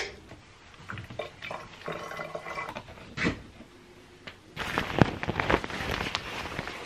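Fabric rustling with small clicks and knocks as gear is handled and packed into a backpack on a bed, busier and louder for the last couple of seconds, with one sharp click among it.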